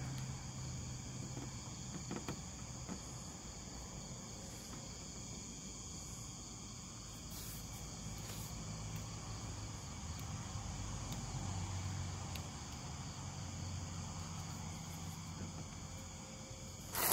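Crickets chirping steadily, with a low hum underneath and a sharp click near the end.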